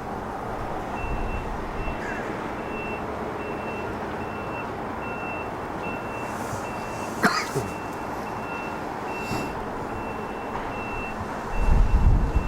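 A vehicle's backup alarm beeps regularly, a little under two high beeps a second, over a steady outdoor background of wind and traffic noise. A sharp click comes about seven seconds in, and a low rumble swells near the end.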